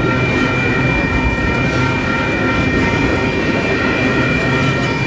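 Double-stack container train's well cars rolling steadily past, a loud, even rumble of wheels on rail. Several steady high tones sound over the rumble.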